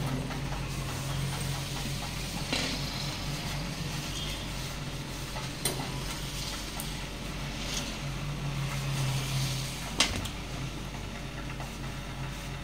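Light handling sounds as rolled, batter-coated colocasia leaves are laid into a perforated aluminium steamer plate, with three sharp knocks against the metal spread through. Under them runs a steady hiss with a low hum.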